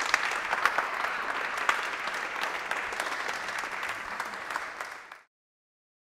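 Audience applauding: a dense crowd of hand claps that slowly dies down, then cuts off abruptly a second before the end.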